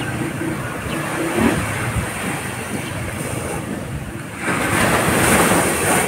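Small sea waves breaking and washing up a dark sand beach, with a louder surge of surf about four and a half seconds in, and wind on the microphone. A low hum fades out about a second and a half in.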